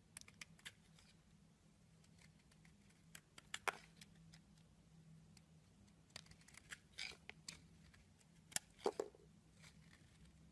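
A snap-off utility knife blade carving a hard bar of olive-oil-and-laurel soap, which crumbles off in chips and curls: scattered crisp crackles and scrapes in short clusters, the loudest pair of cracks near the end.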